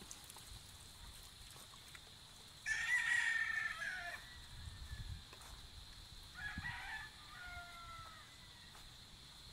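Gamecocks crowing: one loud crow about three seconds in, then a fainter crow with a falling end about three seconds later.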